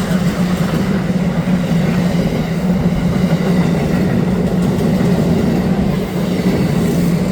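Passenger train rolling past at speed: a steady loud rumble of wheels on rail under a constant low hum.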